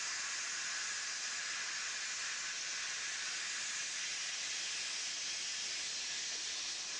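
Steady hiss of steam escaping at the front end of a saddle-tank steam locomotive, even and unbroken, with no exhaust beat.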